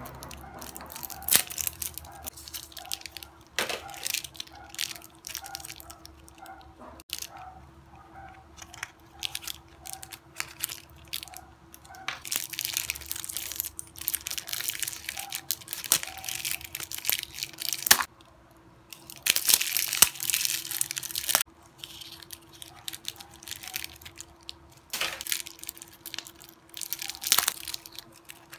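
Clear plastic wrapping crinkling and tearing as it is peeled off a small hard-plastic candy toy case, with clicks and taps of the plastic shell handled in the fingers. The crinkling comes in bursts, loudest in the middle, over a faint steady hum.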